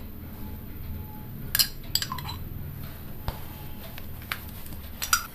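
A few light, sharp clinks of a teaspoon and ghee jar against each other and the pan as ghee is spooned into the pan, over a low steady hum.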